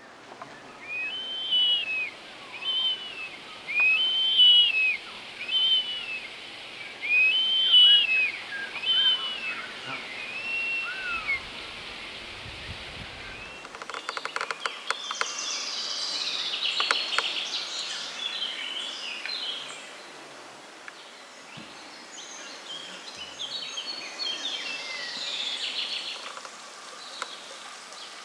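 A bird of prey calling about eight times, each a high arched call. About halfway through, a busy chorus of woodland songbirds chirping and singing takes over.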